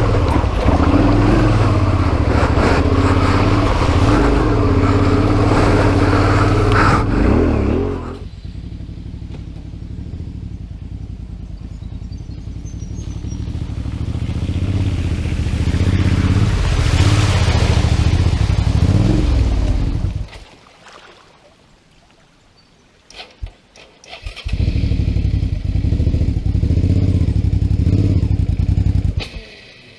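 Adventure motorcycle engine running. It is loud for the first eight seconds, drops abruptly, then rises again until it cuts off about twenty seconds in. After a few quiet seconds with a couple of sharp knocks, it returns loud and stops abruptly near the end.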